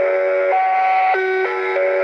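Mr Christmas climbing Santa toy playing a tinny electronic Christmas melody through its small speaker, with held notes stepping to a new pitch about every half second.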